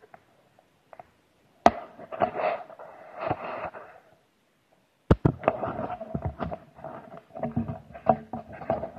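Irregular close-up knocks, clicks and rubbing against a wet 360° camera as it is handled: a sharp click a couple of seconds in with some rustling, a short pause, then a denser run of knocks and scraping through the second half.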